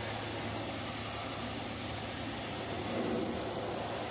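Pressure washer jet spraying water over a diesel truck engine: a steady hiss with a low hum under it in the first second.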